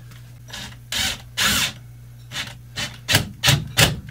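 A screw being turned into a wooden wall stud to mount a curtain hook: a series of short rasping scrapes that come faster and stronger in the last second or so.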